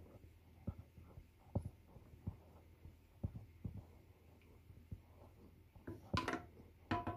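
Wooden spoon stirring milk in a stainless steel saucepan, knocking softly and irregularly against the pan. Near the end come a few louder, sharper knocks with a metallic ring from the pan, over a faint steady hum.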